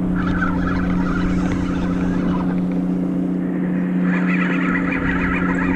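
Shimano Aernos XT 5000PG spinning reel being cranked to retrieve line with something heavy on it, giving a fluttering whir that comes in twice, over a steady low hum.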